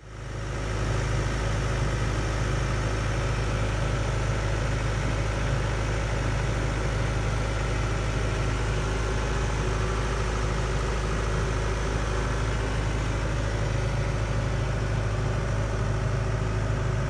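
Diesel engine of earthmoving equipment running steadily at an even pitch, fading in over the first second.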